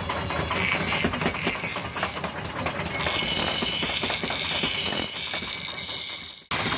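Belt-driven bench grinding wheel running with a rattling clatter. About three seconds in, a steel axe head is pressed against the wheel and a grinding hiss starts, then everything cuts off abruptly near the end.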